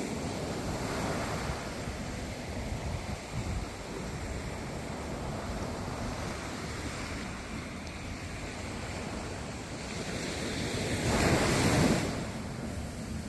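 Ocean waves washing in, with wind rumbling on the microphone; one wave swells and breaks louder near the end.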